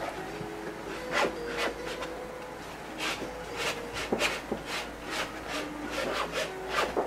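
Oil paint being worked onto a stretched canvas with a painting tool: a series of short scraping, rubbing strokes that come more often in the second half.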